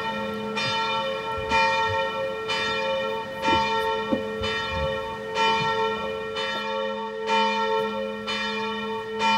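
Church bells ringing, a stroke about once a second, each tone ringing on into the next: a sharp sound.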